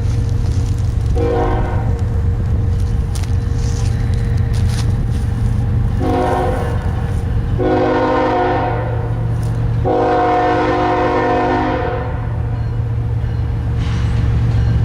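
Diesel locomotive air horn sounding four blasts over the steady rumble of a train: a short blast about a second in, two longer blasts a few seconds later, and a last, longest blast.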